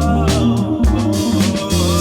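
Background music with a steady beat: bass, drums and a gliding lead melody in a soul or funk style.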